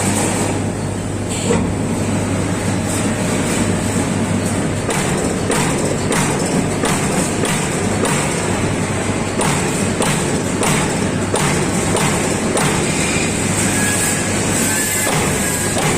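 Amada Pega 357 CNC turret punch press running: a steady machine hum with irregular punch strikes, roughly two a second, as it punches sheet metal.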